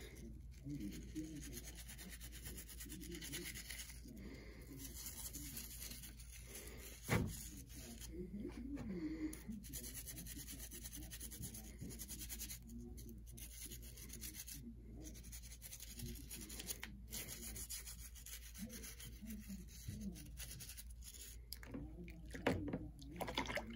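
Brush scrubbing a soapy Tyco Power Torque motor block: a faint, steady scratchy rubbing, with one sharper knock about seven seconds in.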